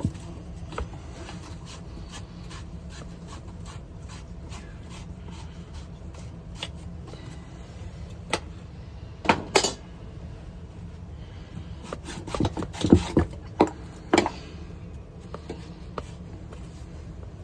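Hand work on plumbing parts: scraping and rubbing with scattered small clicks, and a few louder knocks about nine seconds in and again around twelve to fourteen seconds in, over a steady low hum.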